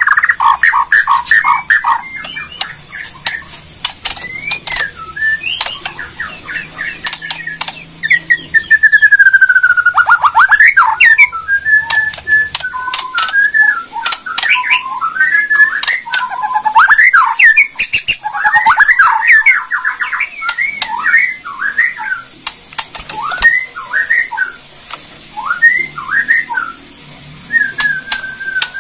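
Bornean white-rumped shama ('murai Borneo') singing a rapid crackling 'kretekan' song: fast runs of clicking notes mixed with quick whistled phrases and slurred glides, with one longer falling whistle about a third of the way through.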